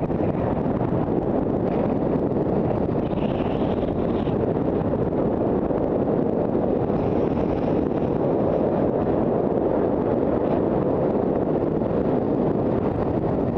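Steady rush of wind buffeting a body-worn camera's microphone during a fast downhill ski run.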